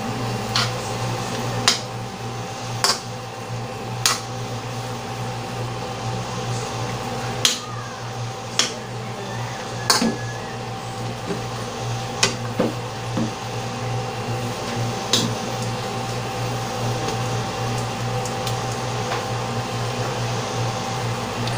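Metal spoon clinking and scraping against a metal wok as saucy chicken wings are stirred: a dozen or so sharp, separate clinks, most of them in the first fifteen seconds, over a steady low hum.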